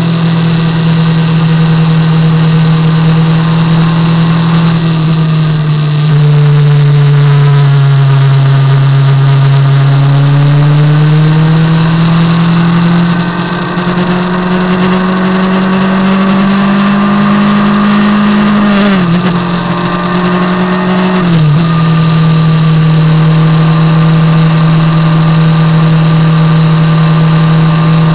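Motorcycle engine running at road speed under way. Its note drops about six seconds in, climbs slowly for several seconds, dips sharply twice about two-thirds of the way through, then holds steady.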